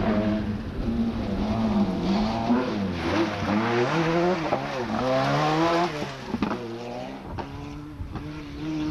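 Rally car engines at full throttle on a stage: a turbocharged Ford Sierra RS Cosworth revving hard, its note rising and dropping again and again through gear changes. Near the end a second rally car passes with a steadier engine note.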